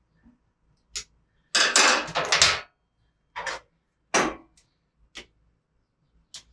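Ratcheting torque wrench with a hex socket working a bicycle pedal into the crank arm: a run of rapid ratchet clicks, the loudest part, then several single metal clicks and knocks as the wrench is moved and set on the pedal.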